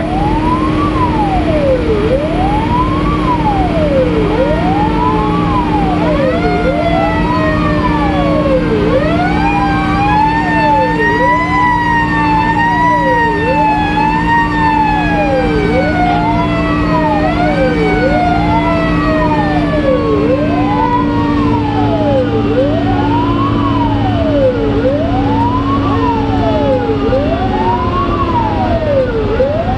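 Fire engine siren wailing, sweeping up and down about every two seconds, heard from inside the cab with the engine droning underneath. A second, higher siren tone rises about seven seconds in and then winds slowly down over the next twenty seconds.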